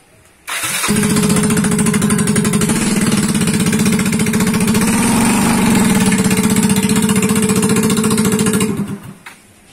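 Yamaha Mio scooter engine, a small single-cylinder four-stroke, running steadily at a fairly constant speed. It starts abruptly about half a second in and cuts off shortly before the end.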